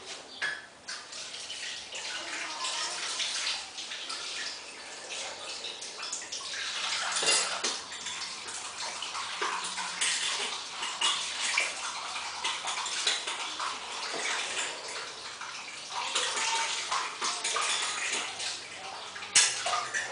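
Water running and splashing unevenly, with wet sloshing and small clicks.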